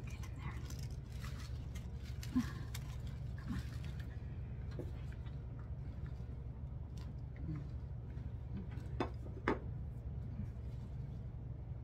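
Rustling and crackling of artificial flower stems and foliage being handled and pushed into the arrangement, then a few sharp light clicks, two close together near the end, over a steady low hum.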